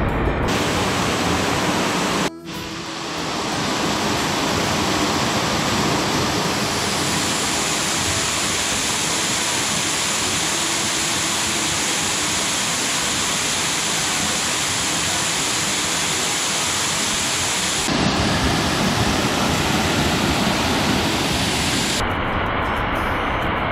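Waterfall pouring off a rock overhang and splashing into a shallow pool, heard close: a loud, steady rushing hiss. It drops out for a moment about two seconds in, and grows a little fuller and deeper near the end.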